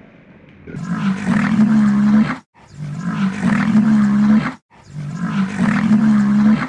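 A big cat roaring: three roars of about two seconds each, each cut off abruptly before the next.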